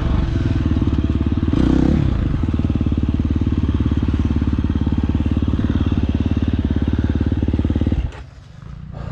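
Dirt bike engine running at low speed as the bike rolls along slowly, close to the microphone. The engine sound cuts off abruptly about eight seconds in.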